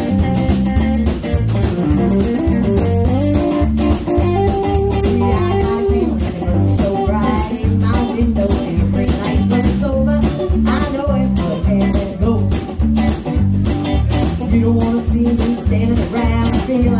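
Live band playing a song with a steady beat on electric guitar, bass guitar and drums, with a tambourine rattling along.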